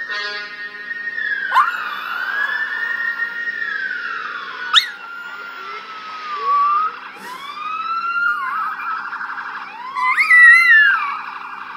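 NYPD police sirens wailing, rising and falling in pitch, switching to a fast yelp near the end, while a Russian Toy Terrier howls along with them. The loudest rising wails come about ten seconds in.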